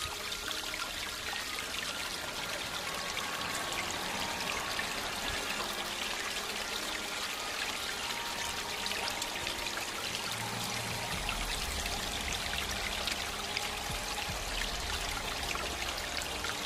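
Steady rushing hiss of running water, like a small stream flowing nearby. A low rumble joins in about two-thirds of the way through.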